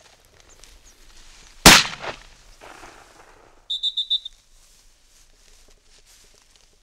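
A single shotgun shot, the loudest sound, followed by a short fading tail and some rustling. About two seconds later comes a quick run of about six high-pitched chirps.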